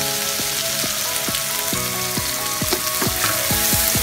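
Masala of onion, ginger-garlic paste and tomato frying and sizzling in oil in a non-stick frying pan, with turmeric and red chilli powder just added. A wooden spatula starts stirring and scraping it near the end.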